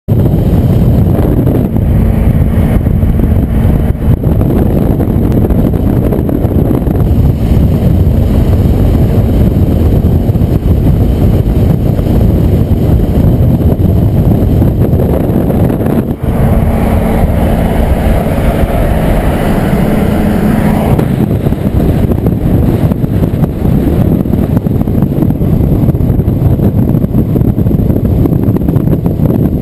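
Car driving at highway speed, heard from a camera mounted outside on the side mirror: a loud, steady rush of wind and road noise with engine hum underneath. From about 16 to 21 seconds in, an engine pulls harder and its tone rises.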